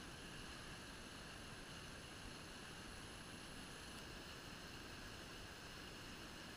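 Faint, steady rushing of a flowing brook.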